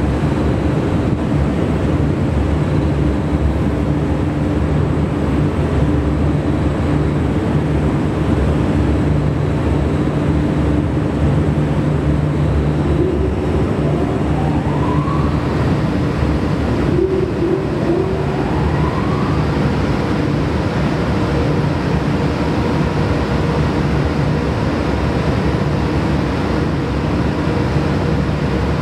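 Standing EH500 electric locomotive with its onboard equipment running: a steady loud hum with several held tones. About halfway through, two rising whines a few seconds apart.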